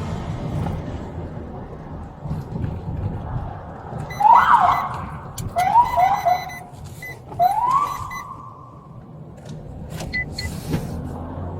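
Low, steady vehicle rumble with three short rising squeals about four, six and seven and a half seconds in, and a few brief high beeps.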